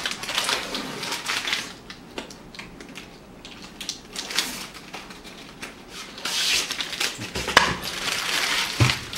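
Brown paper protective backing being peeled off acrylic panels and crumpled: paper crackling and rustling with many small clicks, loudest in the first second or so and again over the last three seconds, quieter in between.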